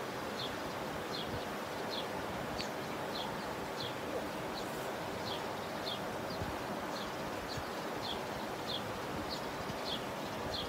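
A bird chirping over and over, short high notes that slide down, one every half second or so, over a steady background hiss.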